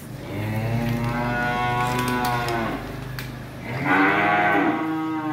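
Cattle mooing: two long calls, the second beginning a little past halfway and running on.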